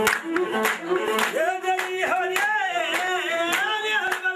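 A group clapping on a steady beat with singing. About a second in, a voice comes in with a wavering, ornamented melodic line over the clapping.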